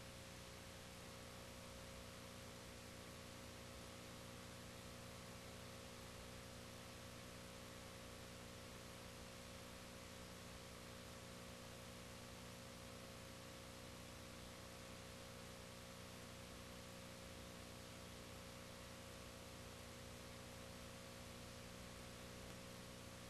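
Near silence: a steady electrical hum and hiss with no other sound.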